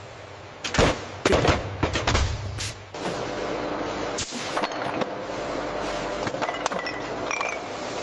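Several sharp knocks or clatters in the first few seconds, then a steady mechanical clattering noise with scattered small clicks.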